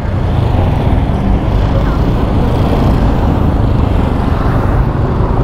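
Steady road traffic noise from vehicles passing on the street.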